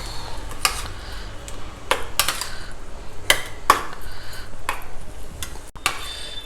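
Spoon stirring and scraping in a bowl, mixing roasted brinjal and curd into raita, with irregular clinks against the bowl.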